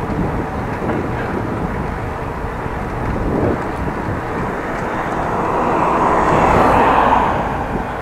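Rushing wind and road noise from a moving bicycle, swelling about five seconds in and easing again near the end.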